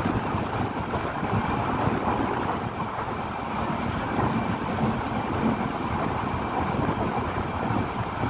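Passenger train coach running at speed, heard from an open window: a steady rumble of wheels on the rails mixed with rushing air.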